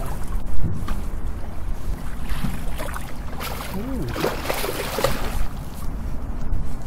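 A hooked steelhead splashing and thrashing at the surface beside the boat for about two seconds near the middle, over a steady rumble of wind and river water on the microphone.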